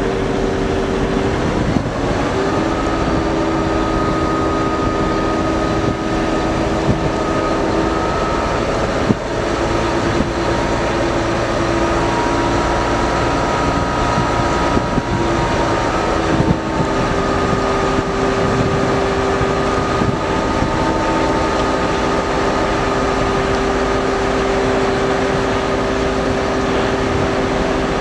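River pushboat's diesel engine droning steadily over loud, even background noise, with a hum that shifts slightly in pitch a few times.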